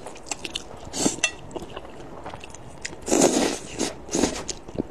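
Close-up slurping and chewing of saucy mixed noodles: short slurps about a second in, a longer slurp around three seconds, and another near the end, with small wet mouth clicks between.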